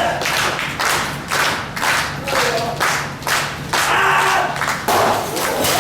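Wrestling crowd clapping together in a steady rhythm, about two and a half claps a second, with a few voices calling out.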